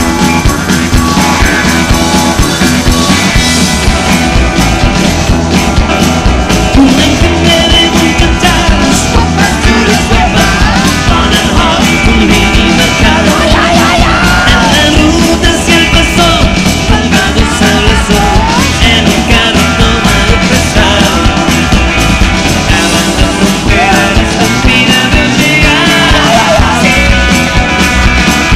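Loud rock music from a band with electric guitar and a steady beat, with a male voice singing over it in places.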